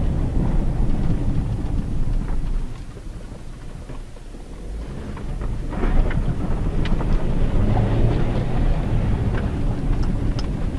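Inside the cabin of a Hyundai Tucson JM with its 2.0-litre petrol four-cylinder, rolling slowly on a gravel road: a low engine and tyre rumble with scattered small clicks and crunches of stones under the tyres. The rumble drops away for a few seconds about a quarter of the way in, then picks up again.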